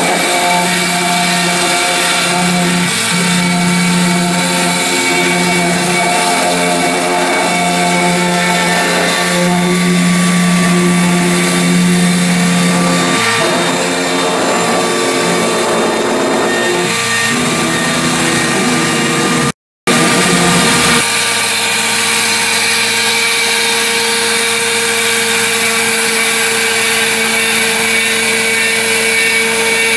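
Homemade CNC machine running, its motors whining in steady tones that change pitch in steps as it moves. There is a brief cut to silence a little before two-thirds of the way in; after it, one steady higher whine holds.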